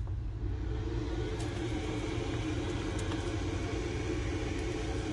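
Cold spark machine switching on as its power cord is plugged in, starting a steady hum about half a second in over a low rumble. There are a few light clicks from the plug being handled.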